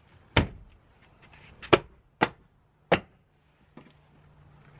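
A car door's plastic inner trim panel being popped back onto the door, its retaining clips snapping home as sharp knocks, about five of them at irregular intervals.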